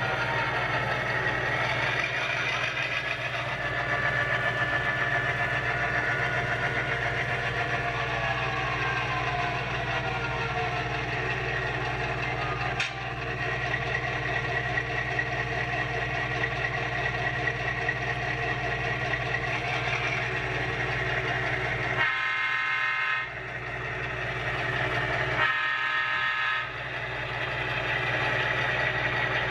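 Diesel locomotive sound, an engine running steadily, with two horn blasts of about a second each near the end and a single click about halfway through.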